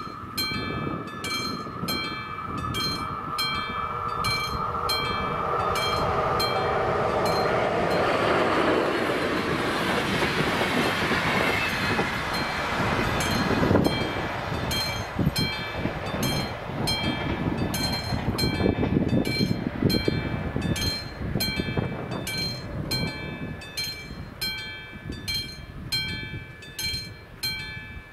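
Level-crossing warning bell ringing at an even pace, about two strokes a second. Over it a train approaches with a steady tone, its rumble swelling to a peak about ten seconds in with a falling pitch as it passes, then easing off.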